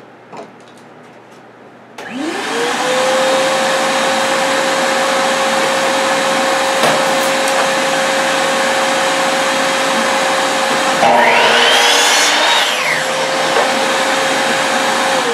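Power miter saw with its hose-connected shop vacuum starts up about two seconds in, its motor note rising quickly, then running steadily. About eleven seconds in the blade cuts through a wooden board for nearly two seconds, the motor note dipping under load with a rising and falling whine. At the very end the motor winds down.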